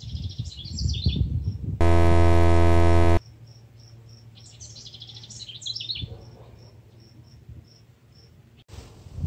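Birds chirping and singing, with a short high note repeating about twice a second. About two seconds in, a loud, steady buzzing tone cuts in for about a second and a half and stops abruptly.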